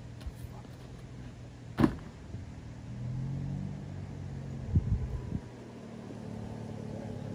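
Dirt bike engine running steadily at low revs, swelling a little about three seconds in. A sharp loud thump comes about two seconds in, and softer knocks follow near the five-second mark.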